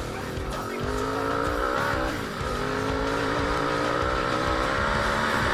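Lucky Star 500 quad's engine running under throttle on the move, its pitch rising about a second in, dipping briefly just after two seconds, then holding steady. Music plays over it.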